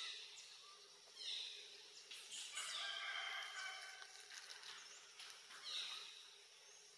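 Animal calls: several short, high calls that slide down in pitch, and a longer call with several tones held from about two and a half to four seconds in.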